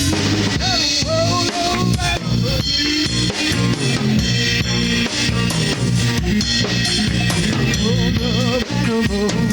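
Garage alternative rock band playing through an instrumental stretch of a song, with a full drum kit, bass and guitars and a wavering lead line above them. It is a raw live recording made to cassette tape.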